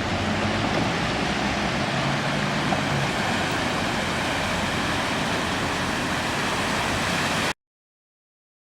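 Steady rush of flowing rainwater, as of a flooded stream or wadi in spate, which cuts off suddenly near the end.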